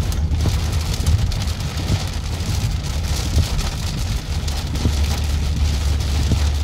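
Heavy rain pelting a car's windshield and roof, heard from inside the moving car over a steady low road and engine rumble.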